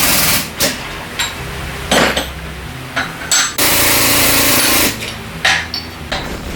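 A workshop power tool runs in two steady bursts, one at the start and one about three and a half seconds in lasting over a second, with sharp metal clicks and knocks between them, during work on the front suspension arm bushings.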